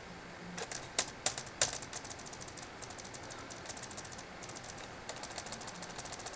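Laptop keyboard keys being tapped: a few separate louder clicks about a second in, then runs of quick repeated taps on a key.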